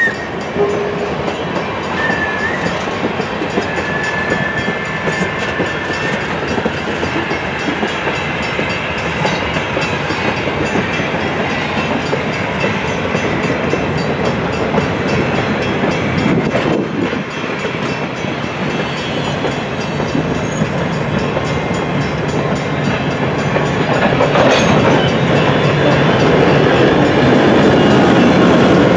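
Freight cars rolling past close by, their steel wheels clicking steadily over the rail joints. Near the end a diesel locomotive's engine grows louder as it draws near.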